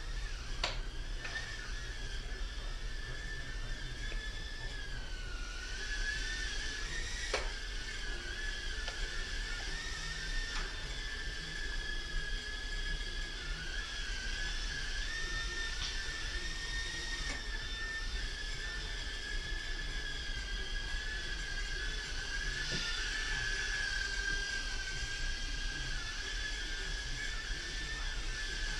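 Blade Inductrix FPV mini quadcopter's ducted fans whining steadily in flight, the high pitch wavering up and down with the throttle. A couple of brief clicks can be heard, about a second in and again about seven seconds in.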